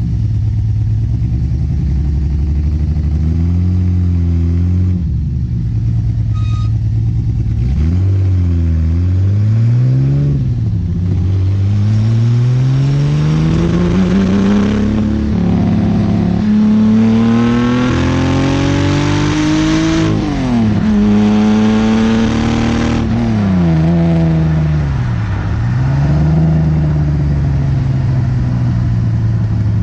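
Datsun 280Z's custom-built L28 straight-six running through an Abarth muffler, idling and being revved: a couple of quick blips, then a long climb in pitch over several seconds that drops back sharply, a brief second hold and drop, a few more blips, and back to a steady idle.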